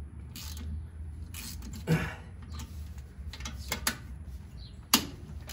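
Ratchet and socket working tight cylinder head bolts loose: a handful of separate sharp metallic clicks and knocks, the sharpest near the end.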